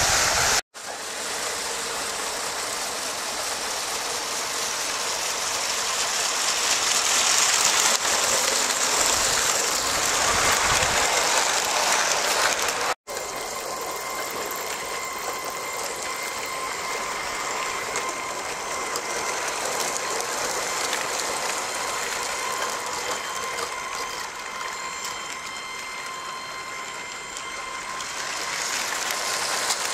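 Motorised LEGO train running fast on plastic LEGO track: wheels rattling over the rails and joints with an electric motor whirring. The sound cuts out briefly twice, about a second in and about 13 seconds in, and after the second break a steady high motor whine runs under the rattle.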